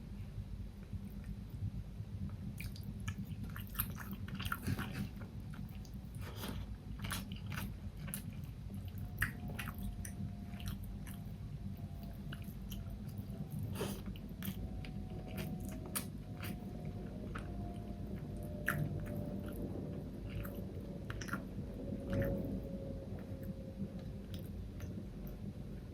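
Close-miked eating: chewing and biting with many sharp wet mouth clicks and the occasional crunch, over a steady low hum.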